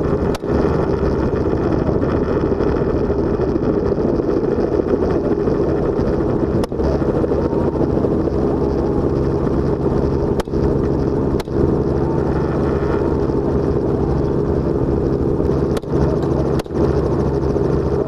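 Helicopter running, a steady loud drone of rotor and engine, broken by several brief dropouts.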